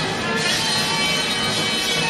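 Live jazz quintet of tenor saxophone, trumpet, piano, double bass and drums playing a dense free-jazz passage, several pitched instruments sounding together over busy drumming, heard on an amateur cassette tape recording.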